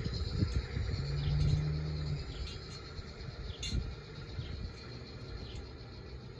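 A small bird chirping, short downward-sliding notes repeated about once a second, over a low outdoor rumble; a brief low hum sounds for about a second near the start.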